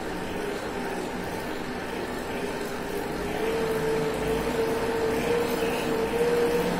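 Wattbike trainer's fan flywheel whirring steadily as it is pedalled, with a hum that rises slightly in pitch over the middle seconds and begins to drop away near the end.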